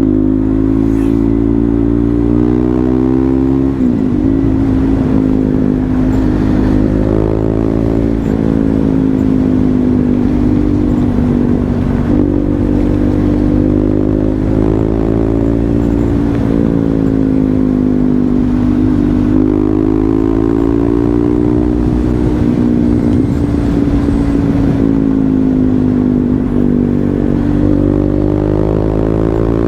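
KTM Duke 390 motorcycle's single-cylinder engine running, its pitch rising and falling slowly with the throttle. There are quick drops in pitch about four and eight seconds in.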